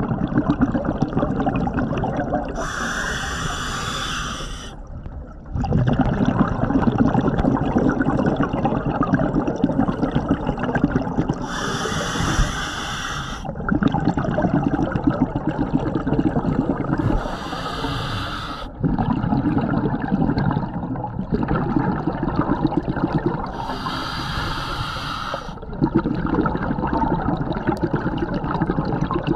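Scuba diver breathing through a regulator underwater. There are four breaths, each a short hissing inhale followed by a longer, bubbling rush of exhaled air.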